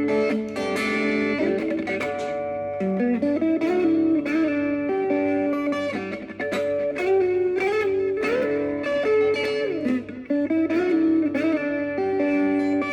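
Guitar instrumental: a melodic lead line of plucked notes with bends and vibrato over a sustained accompaniment.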